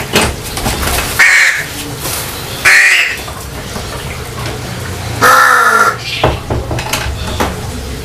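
Pet crow cawing three times, a second or two apart, the third call the longest.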